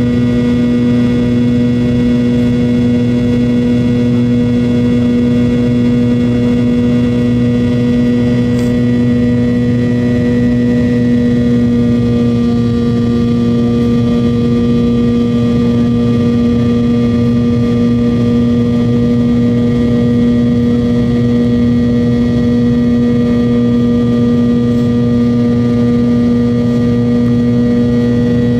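Cabin sound of an MD-88's tail-mounted Pratt & Whitney JT8D turbofan engines, heard from a rear seat in flight: a loud, steady drone with a strong low hum and several steady tones above it.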